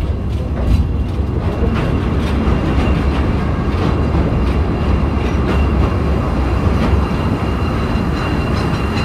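Sightseeing train running on its track, heard from on board: a steady low rumble of wheels and carriage with faint clicks from the rails and a thin steady high whine.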